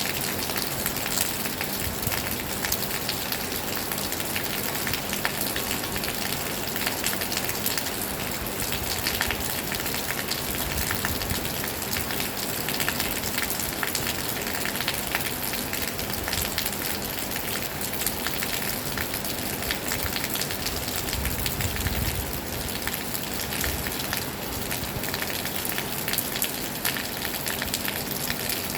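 Heavy rain falling steadily, a dense patter of drops. A brief low rumble rises and fades about three quarters of the way through.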